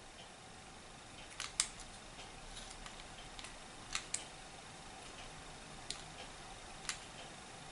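Sharp, irregular small clicks of plastic and metal as fingers handle and press on an opened quartz clock movement with its battery fitted. Underneath, faint ticking about once a second comes from another clock.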